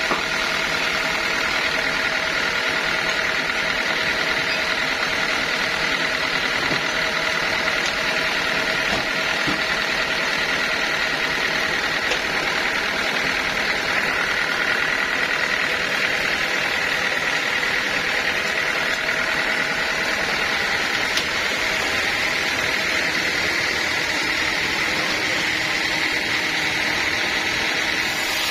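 Sawmill machinery running steadily: an even mechanical drone with a high, unchanging whine.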